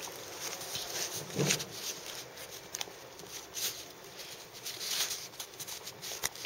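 Faint rustling and light scattered taps of a sheet of paper being handled, with a slightly louder rustle about a second and a half in.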